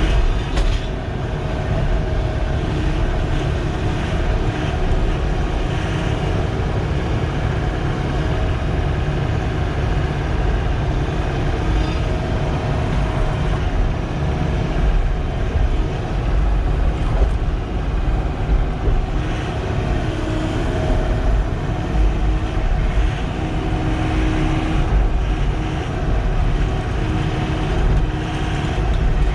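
Sany SY95 excavator's diesel engine running steadily under work, a loud low rumble with a few faint tones that shift now and then.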